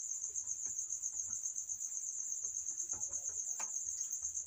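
Insect chirping in a steady high-pitched trill that pulses rapidly and evenly, with faint scuffs of a duster wiping a whiteboard underneath.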